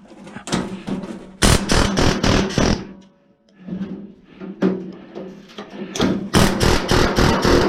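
Pneumatic air chisel hammering into the metal of an old microwave oven, in two loud bursts of rapid blows: one about a second and a half in, and another from about six seconds in, with quieter chattering between.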